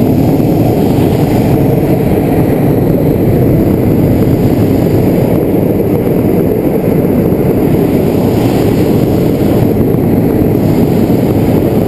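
Hot-air balloon's propane burner firing a long, steady blast that heats the envelope during hot inflation.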